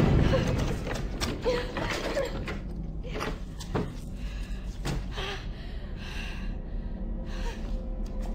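Scattered creaks, clicks and knocks from a film soundtrack, irregularly spaced, over a low background music drone.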